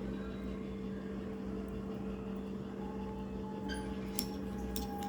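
Steady machine hum with a low rumble, like a fan or air conditioner running, with a few faint clicks about four seconds in.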